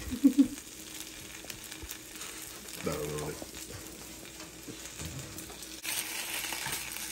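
Food frying in a pan, with a steady sizzle and a spatula stirring. From about six seconds in the sizzling gets louder as sliced turkey meat is turned over in a hot skillet.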